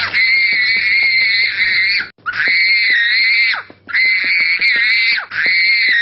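A young child shrieking in a tantrum: four long, very high-pitched screams, each a second or two long, with a short break for breath between them.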